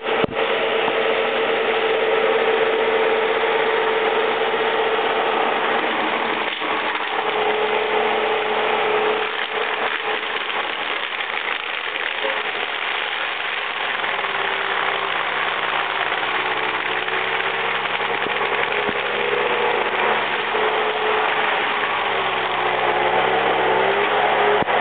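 Bobcat T320 compact track loader's diesel engine running hard while its forestry cutter (mulcher) head spins and mows through brush, a steady mechanical din with a wavering whine that shifts in pitch as the cutter works.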